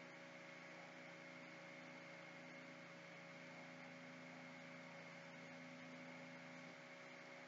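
Near silence: room tone with a steady faint hum and hiss.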